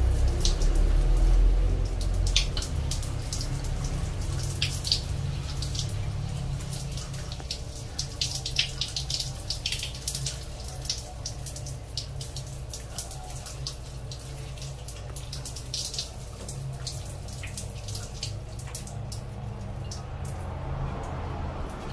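Water running from a shower hose and splashing over a wet baby monkey being washed in a tiled shower, with many irregular splashes and drips. The flow is loudest in the first couple of seconds.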